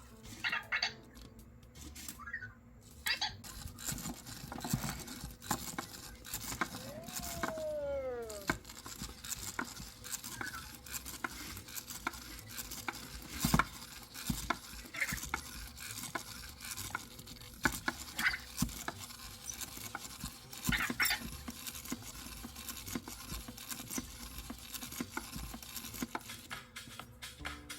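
EMO desktop pet robot's small motors and plastic body clicking and tapping against the surface over and over as it repeats the same movement and cannot stop: the hiccup fault it falls into after leaving its charger. About seven seconds in, a short electronic tone slides up briefly and then falls in pitch.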